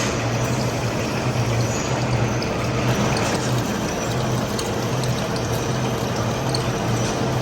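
Heavy workshop machinery running steadily: a low hum under a noisy whir, with a few light ticks.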